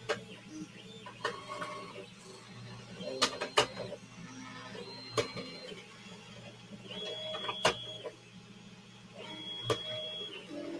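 Small children's 3D printer running a print: a steady whir under short, high-pitched stepper-motor whines as the head and bed move. A few sharp clicks come through, the loudest about three and a half seconds in.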